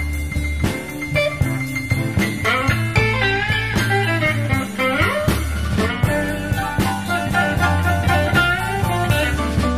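Chicago blues band playing an instrumental passage: electric guitar lead with bent notes over a steady bass line and drums.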